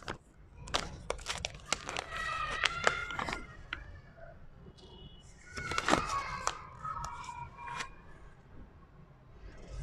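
Paper sheet-mask sachet crinkling and tearing as it is handled and opened, with sharp crackles in two spells: one in the first few seconds and another about six seconds in. A faint pitched call can be heard in the background.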